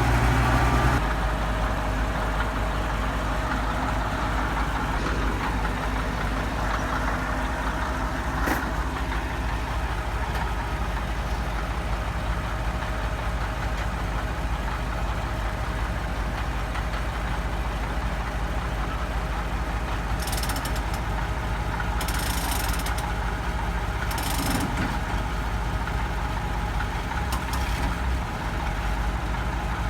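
Nissan RE10 V10 diesel engine of a heavy logging truck running steadily at low revs, its note dropping slightly about a second in. Several short hisses come in the last third.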